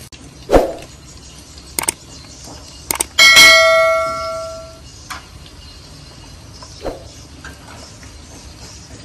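Metal ladle knocking against stainless-steel cookware: a few sharp clanks, then about three seconds in a hard strike that rings like a bell for over a second, and another knock near the end.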